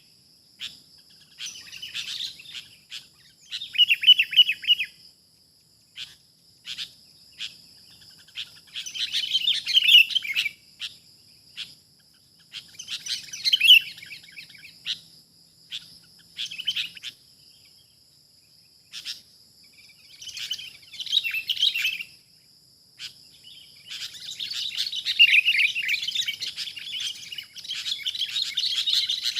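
Sooty-headed bulbuls calling in bursts of fast, scratchy chattering, the longest and loudest run near the end, with scattered short sharp chips between bursts. A steady high-pitched tone runs underneath.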